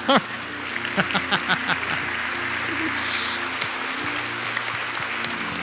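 Congregation applauding and cheering a baptism by immersion, with a few short shouts about a second in, over steady background music.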